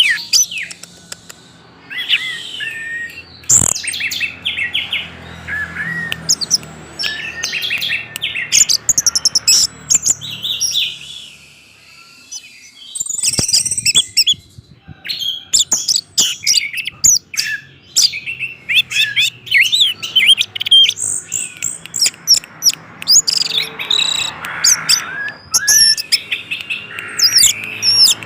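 Orange-headed thrush singing a fast, varied song of chirps, whistles and pitch glides, with a short break a little before halfway.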